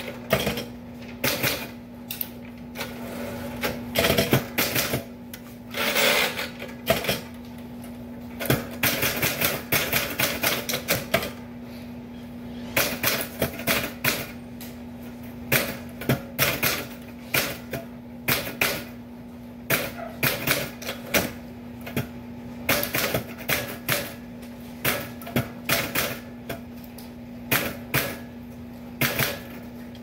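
Typewriter keys striking in irregular runs of rapid clacks with short pauses, as a document is typed out, over a steady low hum.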